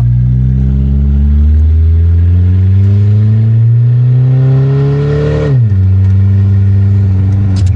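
GO-4 three-wheeler's engine running, its pitch climbing steadily for about five seconds as it revs up, then dropping quickly back to a steady lower run.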